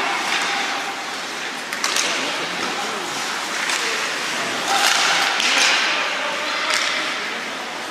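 Ice hockey game in an arena: distant voices calling out over a steady din, sharp knocks of sticks and puck about two seconds in, and a louder hissing burst of noise around five seconds in.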